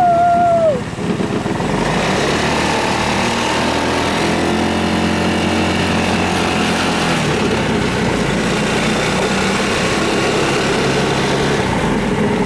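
Small engine of a dune buggy running steadily while driving on a dirt road, its pitch shifting a couple of times. A short steady beep sounds in the first second.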